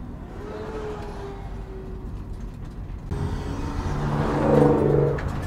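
Road and engine noise from inside a moving vehicle at highway speed, with a steady rumble. It swells to a peak about four and a half seconds in as another vehicle passes close alongside.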